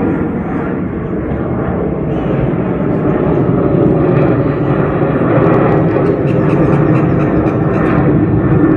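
Airliner taking off and climbing out, its engines a loud, steady noise that slowly grows louder.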